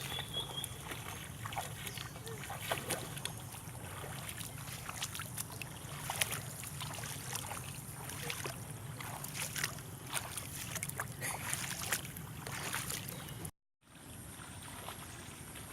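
Irregular splashing and sloshing of water with scattered knocks, over a steady low hum; the sound drops out completely for a moment near the end.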